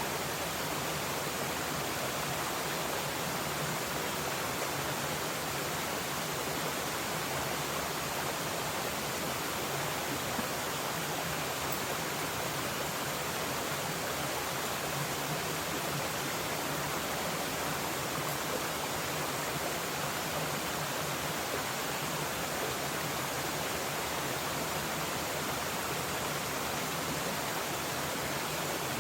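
A mountain stream flowing, a steady, even rush of water with no change in level.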